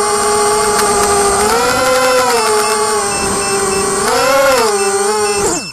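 DYS BE1806 brushless motors and 5045 propellers of an FPV260 quadcopter whining, heard through the craft's onboard camera. The pitch rises and falls twice with throttle changes, then drops sharply and stops near the end.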